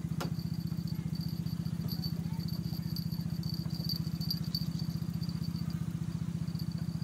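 A small engine running steadily with a fast, even throb, and a thin high whine running above it.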